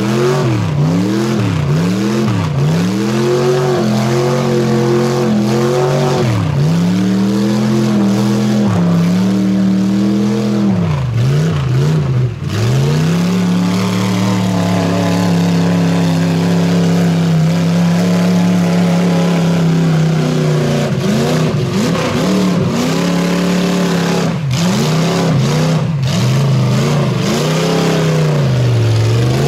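Engine of a lifted mid-1960s Ford pickup mud truck, revved in quick repeated surges, then held at high revs for several seconds in the middle and pumped again near the end, as the truck churns through deep mud.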